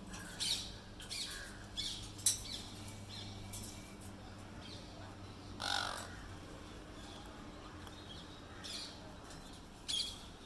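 Birds giving short, scattered squawks and chirps, about seven separate calls spread across a few seconds each, over a faint steady low hum that fades out after the first few seconds.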